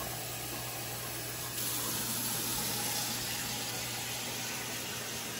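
Steady rushing hiss of water in a kitchen, growing brighter and a little louder about one and a half seconds in, over a low steady hum.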